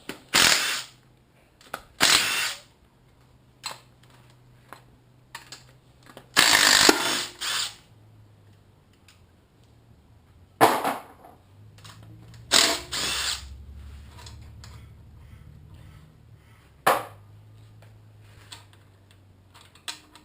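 A cordless power tool, such as an impact driver or drill, spins bolts out of an LS V8 engine's covers in about six short bursts. The longest burst comes about seven seconds in, and a faint low hum runs between the bursts.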